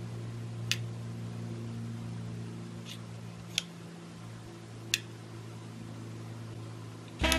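A few short, sharp metallic clicks of small .177 lead air-gun pellets being picked from a metal tin and set on a digital scale's steel pan, over a steady low hum.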